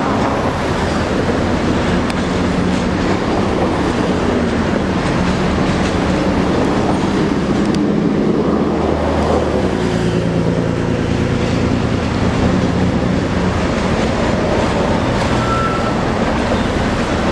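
Slow-moving train of maintenance wagons rolling over yard track, over the steady drone of a Siemens ER20 diesel-electric switcher's engine. The engine note shifts about ten seconds in.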